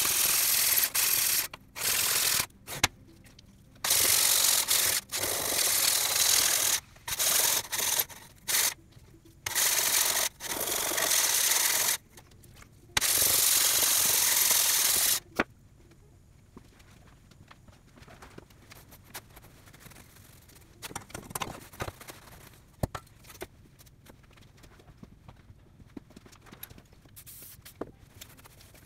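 A round abrasive puck scrubbed by hand along the rusty steel blade of a crosscut saw, in a run of loud hissing back-and-forth strokes of uneven length, to scour off rust. The scrubbing stops about halfway through, leaving only faint taps and knocks.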